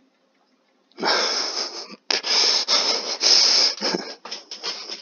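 A man breathing out hard and breathily close to the microphone: one long wheezing exhalation starting about a second in, then several shorter pulses.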